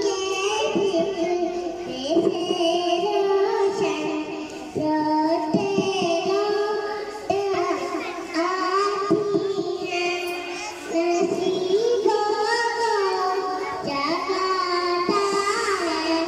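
A young child singing a naat, an Urdu devotional poem in praise of the Prophet Muhammad, in a melodic chant with long held notes and slides between them.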